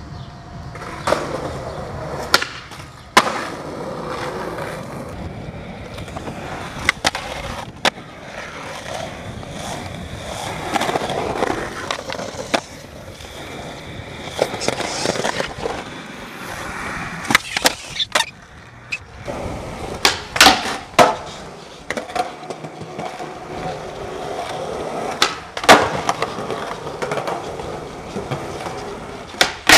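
Skateboard wheels rolling on concrete, with sharp clacks and smacks of the board and trucks hitting the ground about a dozen times, several coming in quick pairs.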